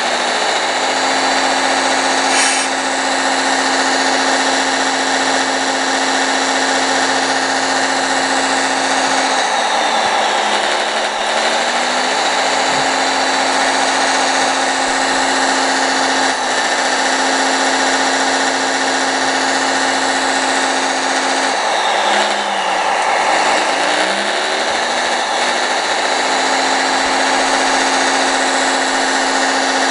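Radio-controlled Doosan excavator and Mack dump truck models running: a steady electric motor and pump whine over an electronic diesel engine sound. The main tone sags and recovers twice, about a third of the way in and again past two thirds, as the excavator works.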